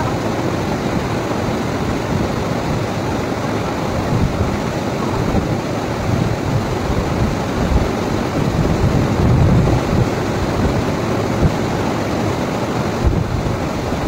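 Steady rushing water of a small waterfall, with uneven low swells.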